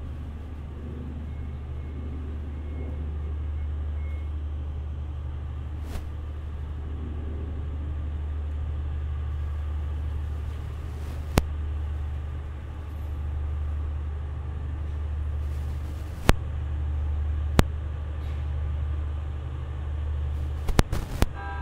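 E001 'Train Suite Shikishima' pulling slowly out of the shed: a steady low drone from the train, with sharp single clicks every few seconds as its wheels cross rail joints, and several quick clicks close together near the end.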